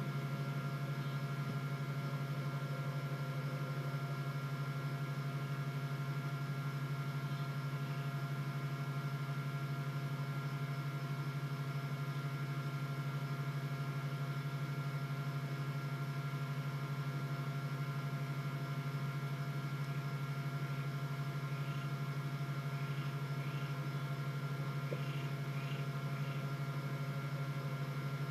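Steady electrical hum from a live nest-box camera's microphone, with several fixed tones over a low drone. A few faint, short, high chirps come in near the end.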